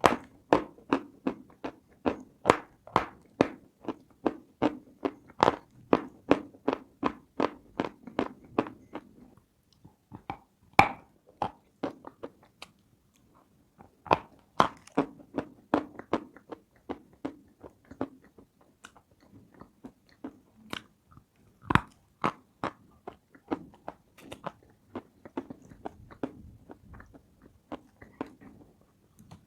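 Close-miked biting and chewing of something hard and crunchy: rapid chewing crunches about two to three a second, a pause broken by a single sharp bite, then more chewing with another sharp crunch later on.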